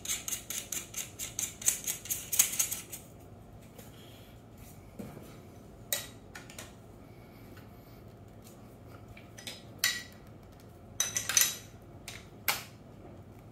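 A quick run of small metallic clicks for about three seconds as the securing screw on an airsoft rifle's stock tube is tightened down, then scattered clinks and taps of metal tools and parts being handled.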